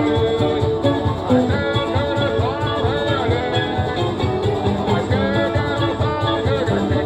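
Live acoustic country music: strummed twelve-string guitar and mandolin over a steady beat from foot-operated percussion pedals, with a bending blues-harp line on top.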